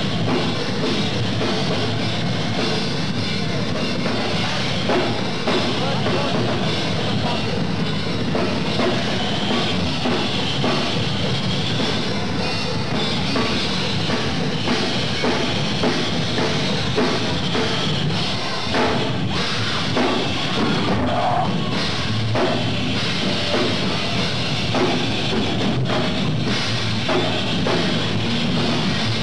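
Heavy metal band playing live: a full band with a drum kit, dense and steady in level.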